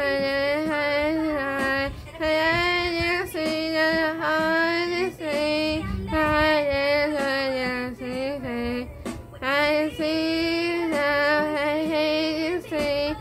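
A woman singing solo, held notes in short phrases with brief pauses between them.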